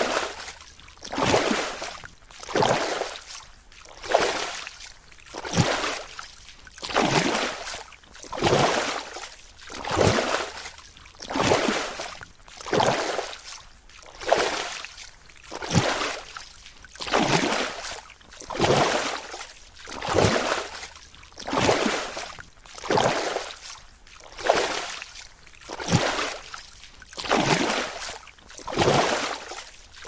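Water sloshing in a steady rhythm, one washing surge about every second and a half, each swelling and fading away.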